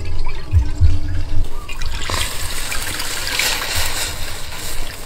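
White liquid poured from a bowl into a hot iron wok, a splashing, frothing hiss from about two seconds in that lasts about three seconds. Before it there are a few low thuds.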